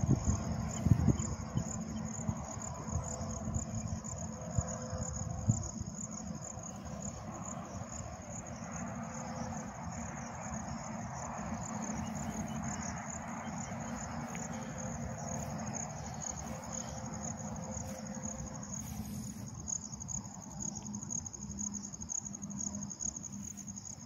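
Insects chirping in a steady, high-pitched pulsing drone. There are a few low thumps near the start.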